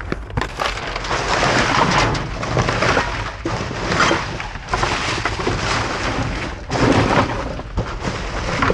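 Gloved hands rummaging through dumpster trash of crumpled kraft packing paper, cardboard and loose wire: continuous crinkling and rustling with scattered knocks and clatters.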